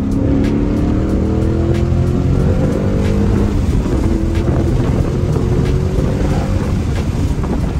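2022 Ford Mustang Mach 1's 5.0-litre V8 through an aftermarket Steeda mid-pipe and the factory active exhaust, heard from inside the cabin at full throttle. The revs climb, break off briefly as it shifts up about three seconds in, then climb again and ease off near the end.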